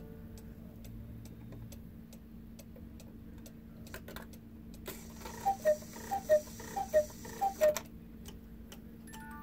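Carved three-weight cuckoo clock ticking steadily; about five and a half seconds in it calls "cuckoo" four times, each call a higher note dropping to a lower one.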